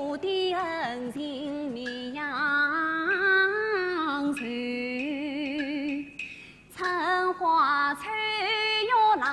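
Yue opera singing: one voice holding long, wavering notes with a wide vibrato and sliding between pitches. The voice drops away briefly about six seconds in, then comes back.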